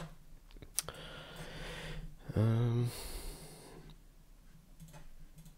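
A man breathing out, then a short hummed "mm" lasting about half a second, with a single click about a second in.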